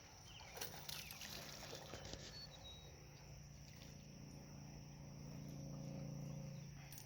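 Faint insects trilling steadily. A few brief clicks or rustles come about a second in, and a low hum swells and fades near the end.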